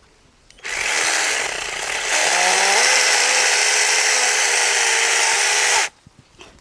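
Compact cordless electric chainsaw running, most likely cutting a eucalyptus branch. It starts suddenly under a second in, grows louder about two seconds in with a wavering motor note, and stops abruptly near the end.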